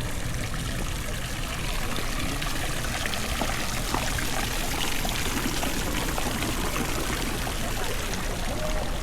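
Steady splashing rush of running water, holding an even level throughout, with scattered small clicks.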